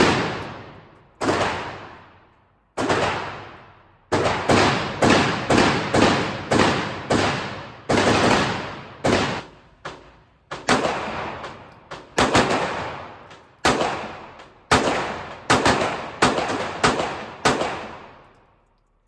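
Semi-automatic pistol fired over and over, about 25 sharp shots at uneven spacing, one to three a second. Each report rings off in the reverberant indoor range.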